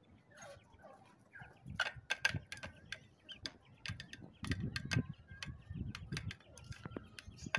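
Chickens pecking chopped egg off a ceramic plate on a concrete floor: quick, irregular clicks of beaks striking the plate, coming thicker from about two seconds in. Faint short chirps sound between them.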